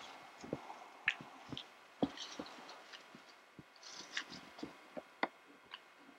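Footsteps crunching and swishing through tall dry grass and brush: an irregular run of crackles and snaps at about walking pace, with soft rustling between them.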